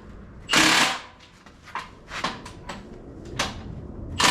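Two short bursts of a cordless impact wrench hammering on an engine bolt, one about half a second in and one near the end, each lasting about half a second, with small clicks and knocks of handling between.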